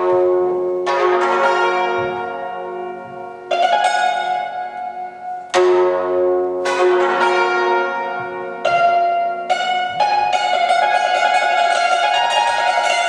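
Chinese hammered dulcimer (yangqin) played with two beaters: groups of struck notes and chords, each with a sharp attack that rings on brightly and overlaps the next.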